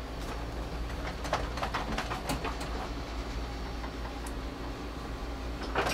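Scattered light clicks and knocks of battery cables, terminals and tools being handled, over a steady low hum.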